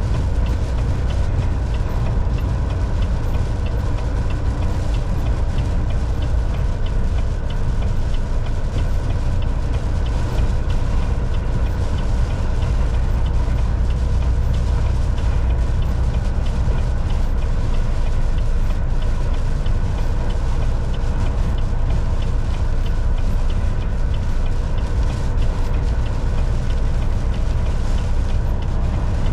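Volvo VNL 760 semi-truck cruising on the highway: a steady low engine drone with a constant hum and road noise, unchanging throughout.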